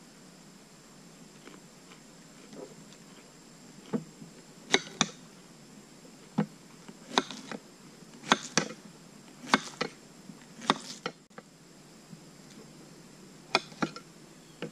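Kitchen knife slicing through a zucchini, the blade knocking sharply down onto the pan and board beneath about fourteen times at an uneven pace, starting about four seconds in.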